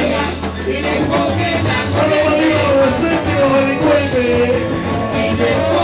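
Live cubaton music: a band playing an upbeat groove with a man singing lead into a microphone over it.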